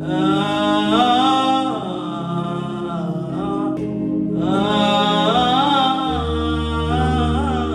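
Slow, meditative worship music: sustained chords held underneath a wordless, wavering melody line that comes in two long phrases with a short break between them.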